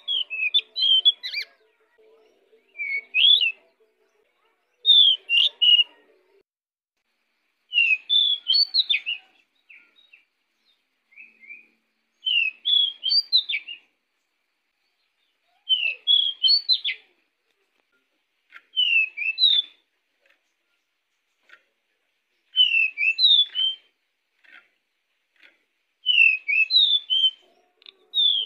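Pied bushchat (decu) singing: short, quick whistled phrases of a second or so, repeated about every three to four seconds.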